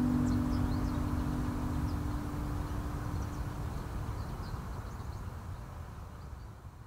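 The last guitar chord dies away, leaving a steady hiss and low rumble of background ambience with faint high chirps scattered through it, all fading out steadily.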